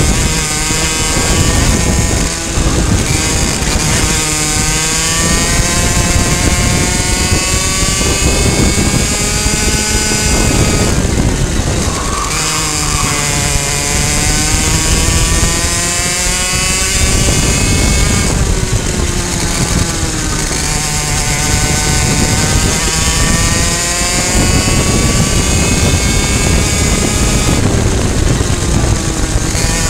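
Two-stroke racing kart engine at high revs. Its pitch climbs as the kart accelerates out of each corner and drops off as the driver lifts and brakes, several times over.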